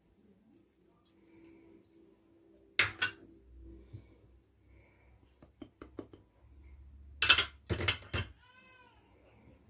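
Small ceramic ramekins clinking and scraping against a glass mixing bowl as ingredients are tipped in: sharp clinks about three seconds in, a few light ticks, then a louder cluster of clinks near the end. Right after them a cat meows once.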